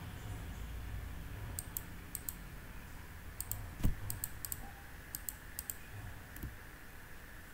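Computer keyboard typing: several short runs of key clicks, with one louder knock about four seconds in.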